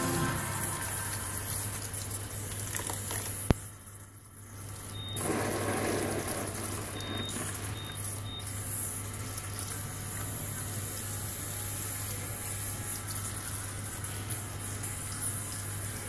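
Water running from a salon backwash basin's spray hose into the basin, with a sharp click and the water briefly dying away about four seconds in.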